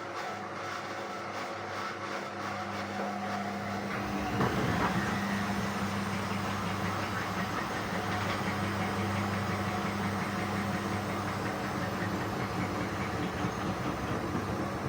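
Indesit WISN 101 front-loading washing machine in its rinse cycle: the motor hums steadily as the drum turns, growing louder and fuller about four seconds in.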